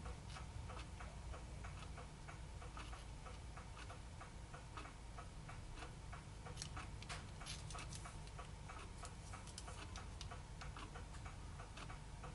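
Steady, rapid ticking, about four ticks a second, over a faint low hum.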